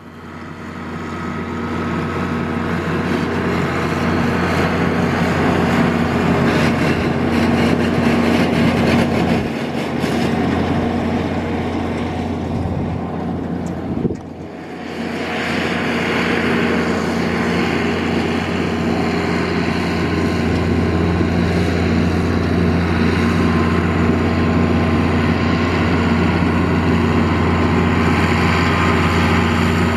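John Deere 4650 tractor's six-cylinder turbo diesel running steadily under load while its PTO drives a 3975 forage harvester chopping alfalfa. The level dips briefly about halfway through.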